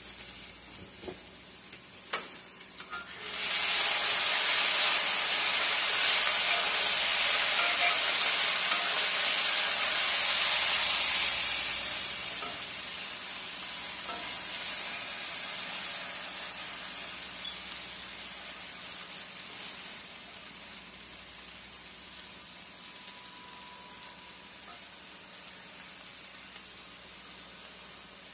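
Diced potatoes sizzling in hot grease in a cast-iron skillet. About three seconds in, as the potatoes are stirred in the pan, the sizzle jumps much louder, holds for several seconds, then settles to a softer steady sizzle. There are a couple of light knocks in the first few seconds.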